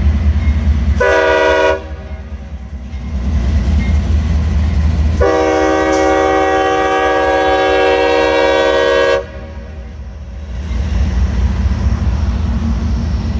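CSX freight locomotive air horn sounding a short blast about a second in, then a long blast of about four seconds from about five seconds in, a chord of several steady notes. This is a horn show played by the crew for onlookers as the train leaves. A low, steady rumble from the moving train runs under both blasts.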